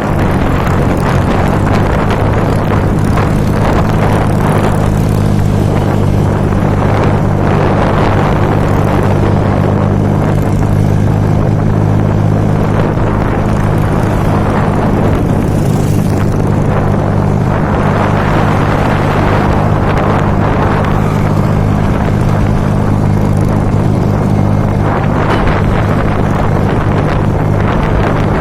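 Strong wind blowing in gusts, swelling every few seconds, over a steady low hum.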